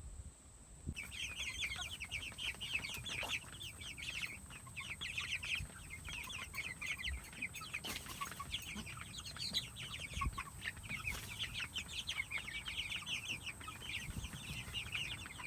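A flock of young meat chickens cheeping and peeping together, a dense stream of short high calls that starts about a second in and keeps going.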